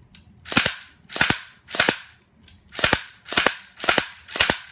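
Electric airsoft pistol (H&K P30) firing single shots: about seven sharp cracks, roughly two a second, each with a brief ring after it.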